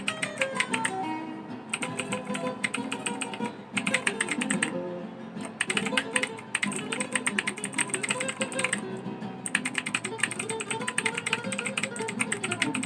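Fast typing on a Rakk ILIS keyboard: a dense run of key clicks that thins out briefly about five seconds in and again about nine seconds in. Guitar music plays underneath.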